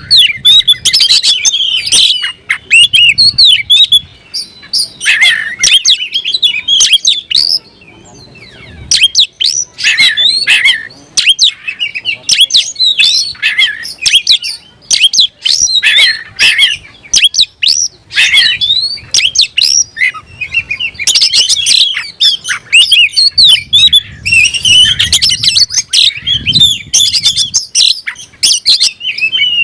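Oriental magpie-robin (kacer) in full, rapid song: a dense run of varied whistles and chirps, with brief pauses about four seconds in and around eight seconds in. It is the vigorous challenge song of a male singing as if answering a rival.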